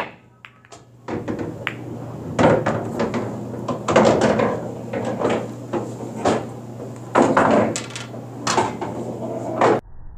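Pool break: the cue ball hits the racked balls about a second in, then the balls clack against each other and knock around the table in a run of hard clicks for several seconds, cut off suddenly near the end.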